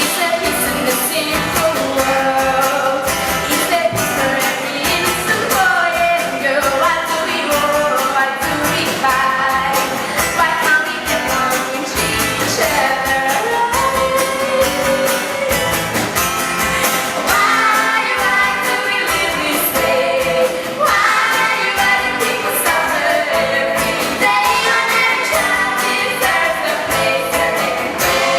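Upbeat pop-rock song with a lead vocal over a full band.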